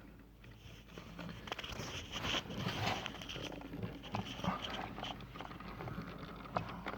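Irregular, rapid clicking from behind the dashboard of a Toyota Sienna near the driver's footwell, from the heater/ventilation mode-door mechanism, which clicks constantly whatever vent mode is selected.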